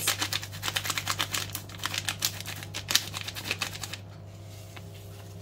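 A small spice sachet of ground black pepper being shaken and tapped over a bowl, making rapid crinkly clicking that stops about four seconds in.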